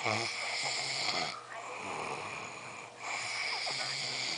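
A drunk person snoring in a regular rhythm, one noisy breath about every second and a half.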